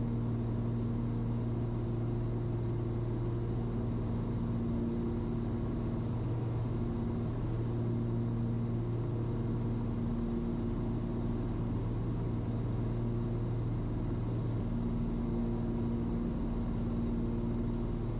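Cessna 340's twin piston engines and propellers droning steadily in the cockpit on final approach, with a higher hum that swells and fades every few seconds.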